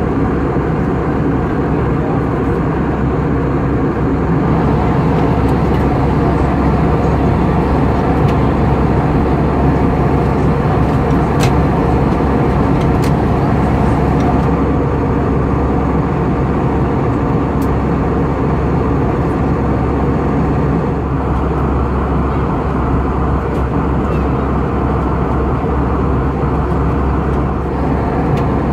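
Steady roar of a jet airliner's cabin in cruise: engine and airflow noise heard from a window seat beside the wing and engine. A few faint clicks come in the middle.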